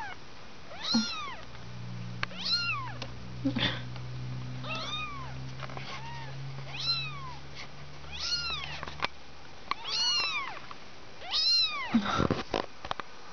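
Two-week-old kittens mewing over and over: high thin calls that rise and fall in pitch, about one a second. Near the end come rustling and a few knocks.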